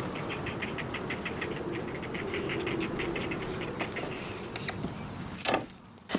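Rapid, even chirping, about eight short notes a second, over a steady low hum. About five and a half seconds in it drops away and a sharp crack follows, as a dry branch is snapped.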